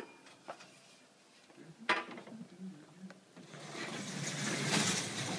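Large studio backdrop panels being handled and slid by hand: a sharp knock about two seconds in, then a second or two of rubbing and scraping that grows louder toward the end.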